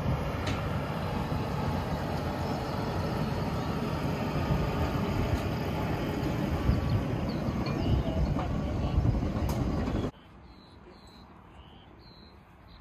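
Heavy truck running and rolling past on grass, a steady low engine and tyre rumble. About ten seconds in it cuts off suddenly to a much quieter background with faint high chirps.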